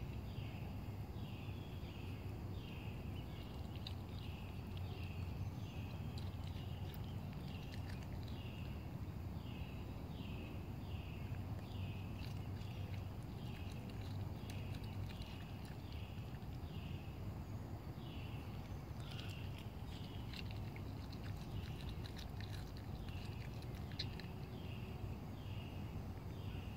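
A steady series of short, high chirps, about two a second, over a low rumbling background.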